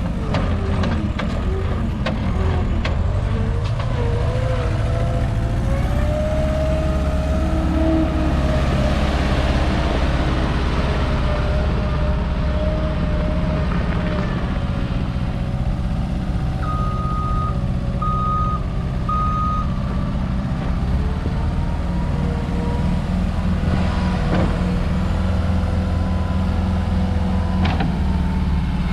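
A 2012 Case SR150 skid steer loader's diesel engine running steadily as the machine works, with a whine that wavers up and down through the first half. About two-thirds of the way through, its reversing alarm gives three short beeps.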